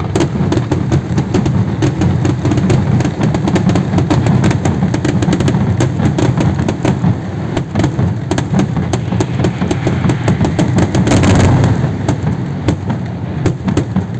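Aerial fireworks going off in a rapid, continuous volley: many sharp bangs and crackles a second over a heavy rumble, the dense climax of a display, easing off a little near the end.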